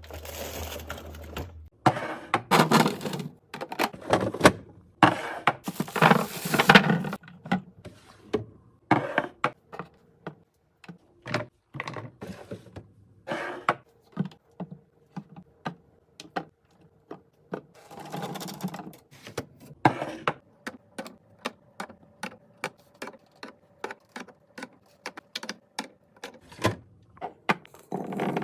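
Hands restocking a fridge: containers and bottles clicking and knocking as they are set down, with a few longer bursts of rustling or handling noise lasting about a second each.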